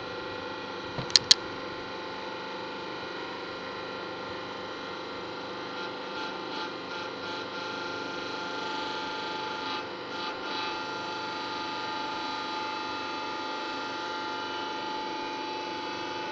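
A steady machine hum made of several steady tones, with two sharp clicks a little over a second in and light rattling in the middle.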